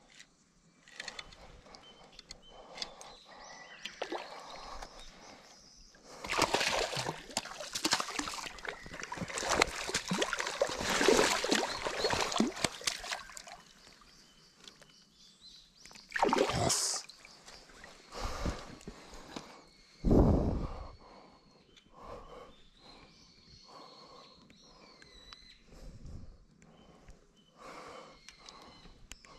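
A hooked largemouth bass splashing and thrashing at the surface for several seconds as it is reeled in and landed. A few loud knocks and scuffs follow as the fish is handled on the concrete bank.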